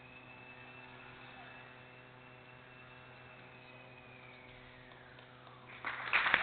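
Small indoor electric RC aerobatic plane's motor whining faintly, rising a little then falling away as it throttles down about four seconds in, over a steady hum. Near the end, loud applause suddenly breaks out.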